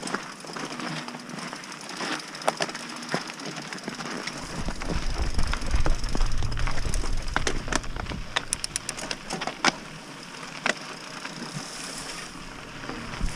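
Scott Spark mountain bike rolling along a dry dirt singletrack: tyre noise on loose dirt and gravel with many sharp irregular clicks and rattles from the bike over the bumps. Wind rumbles on the microphone for a few seconds in the middle.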